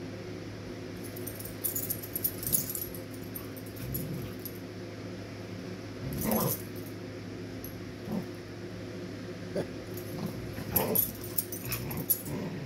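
Two dogs play-fighting on a bed: short growls and scuffling in irregular spurts, the loudest about six and eleven seconds in.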